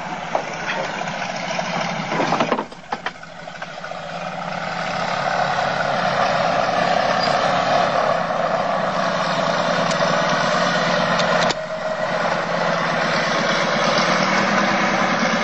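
Tow plane's piston engine running. The sound drops sharply about two and a half seconds in, builds back up over the next few seconds, then holds steady.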